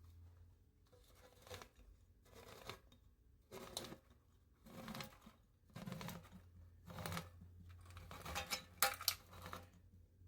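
Can opener cutting around a metal can lid, in short scraping, crunching bursts about once a second, with a few sharper clicks near the end.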